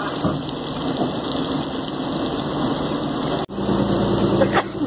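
Marinated fish pieces sizzling as they fry in a pan of hot oil, a steady hiss. About three and a half seconds in the sound breaks off for an instant and the sizzle goes on over a steady low engine hum.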